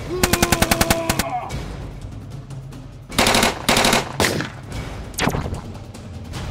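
Automatic gunfire: a rapid burst of about ten shots a second lasting just over a second, then after a pause two dense bursts and a few single shots.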